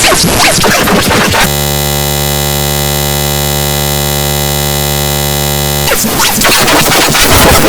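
Loud, harsh, digitally distorted noise full of clattering hits. About a second and a half in it locks into a steady buzzing drone on one pitch for about four seconds, then breaks back into the clattering noise.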